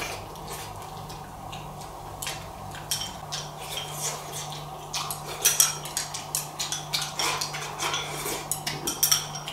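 Chopsticks clicking and scraping against a porcelain rice bowl as food is shoveled from the bowl into the mouth: a string of quick, light clicks, sparse at first and busiest in the second half.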